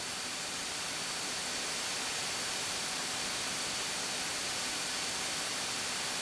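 Steady hiss of cockpit intercom audio in a Beechcraft A36 Bonanza on approach, with a faint high whine running under it.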